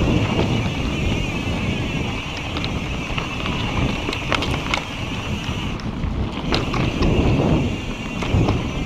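Mountain bike rolling along a dirt and rock trail: wind rushing over the microphone and steady tyre noise on the ground, with scattered sharp clicks and rattles from the bike going over bumps.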